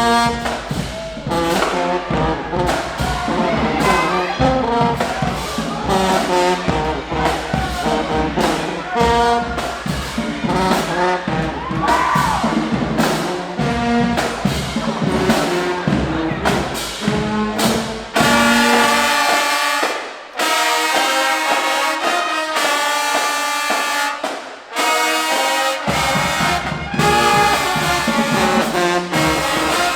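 High school marching band playing loudly: a brass section of trombones and trumpets over a drumline beating a steady rhythm. About two-thirds of the way through, the low bass drops out and only the higher horns carry on for several seconds, with two short breaks, before the full band comes back in.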